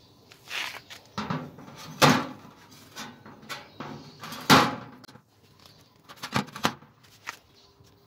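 A steel knife blade being set down and handled on a hard table top: a series of knocks, the two loudest about two seconds and four and a half seconds in.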